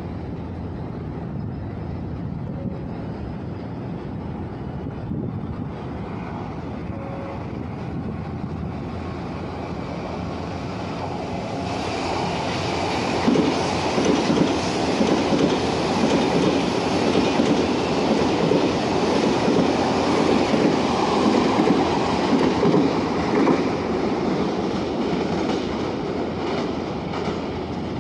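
Odakyu 30000 series EXEα electric limited express train passing through the station without stopping. A low rumble builds as it approaches, the sound turns suddenly brighter and louder about halfway through as the train runs past, and it stays loudest for about ten seconds before easing off as it pulls away.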